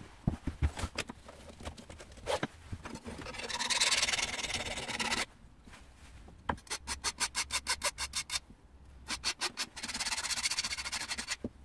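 Steel knife edge being hand-sharpened with a small hand-held sharpening tool, metal rubbing and scraping along the blade. A few knocks come first, then one long stroke, then a run of quick short strokes about eight a second, and steadier rubbing near the end.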